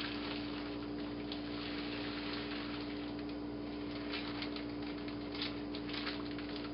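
Dried split peas pouring from a plastic bag into a pot of boiling water, then the bag crinkling with scattered sharp clicks as it is twisted closed. A steady low hum runs underneath.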